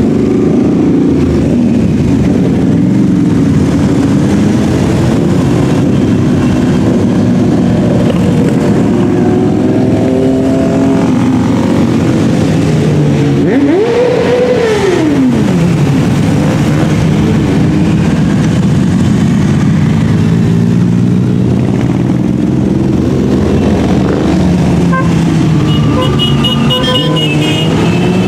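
Loud, steady engine noise of a long column of motorcycles riding past, with one engine revving up and dropping back about halfway through. Horns begin to toot near the end.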